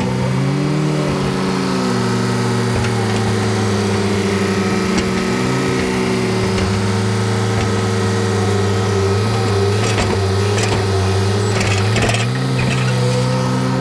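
Skid steer loader engine running steadily, its pitch rising and falling a few times as it works, with a few knocks and clatters near the end.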